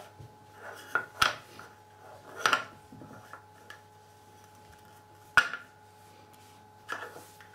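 Small picture-puzzle cubes knocking and clacking as they are handled and set down on a wooden tabletop: about five separate knocks, the loudest about five seconds in, with light handling sounds between.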